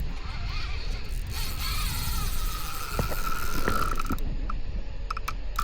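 Fishing reel drag buzzing as a hooked fish pulls line off the spool, a steady whine that stops a little past halfway, followed by a few clicks.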